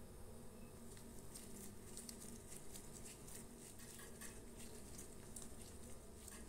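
Faint, sticky crackling and small clicks of gloved hands rounding and flattening a ball of bread dough on a wooden table.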